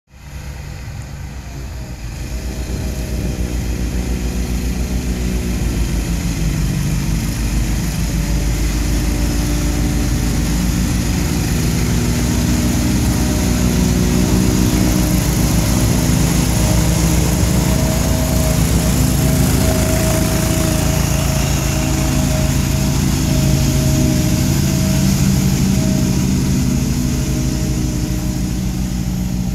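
Boss Hogg truck-mounted snow blower's 40 hp Kohler engine running hard under load while the blower throws wet, heavy snow. It grows louder over the first few seconds as it approaches, then holds steady.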